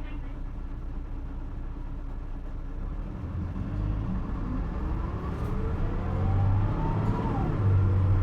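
Isuzu Erga city bus accelerating hard in power mode, heard from inside: the diesel engine runs steadily for about three seconds, then grows louder with a rising whine that climbs, drops back after about seven seconds as if at a gear change, and starts to climb again.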